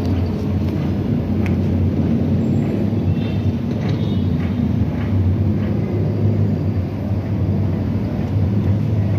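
A steady low rumbling noise with a few faint clicks and brief faint high squeaks over it.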